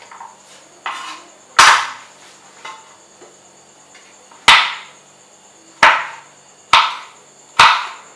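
Kitchen knife chopping on a wooden cutting board: five loud, irregularly spaced chops, each dying away briefly, with a couple of lighter taps between them.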